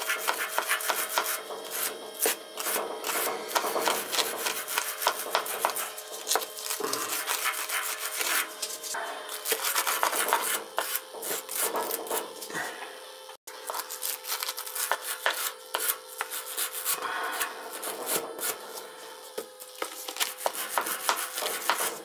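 Wire brush scrubbing the threads of a rusty steel pipe nipple on top of a water heater in rapid, irregular scratchy strokes. The brushing cleans off old sealant before fresh Teflon tape and pipe dope go on.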